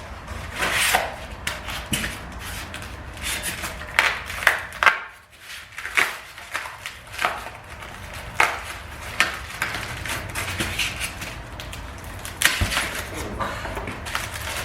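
Unboxing handling: forge parts and their packaging being picked up, rustled and set down, with many irregular knocks and clatters.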